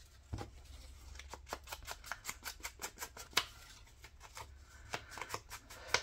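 Paper and small craft supplies being handled on a cutting mat: a run of light, irregular clicks and scratches, several a second, with one sharper tick about three and a half seconds in.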